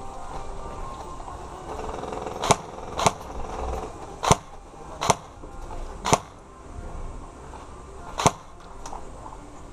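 Airsoft electric gun firing single shots: six sharp cracks at uneven intervals, starting about two and a half seconds in, with a fainter shot just after the last one.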